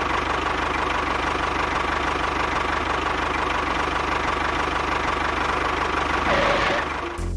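Engine running steadily with a fast knocking chug and a steady high whine. It cuts off abruptly near the end.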